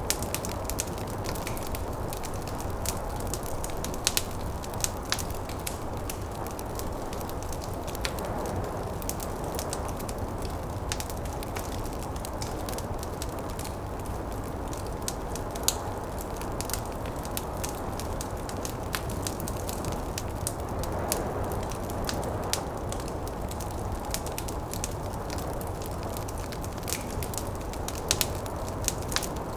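Wood fire crackling in a fireplace: frequent sharp pops and snaps scattered irregularly over a steady low rushing noise that swells a little twice.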